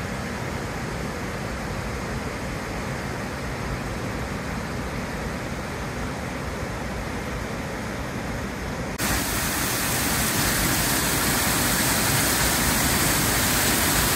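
Steady rush of the Rhine Falls waterfall, heard muffled at first; about two-thirds of the way in it suddenly becomes louder and brighter.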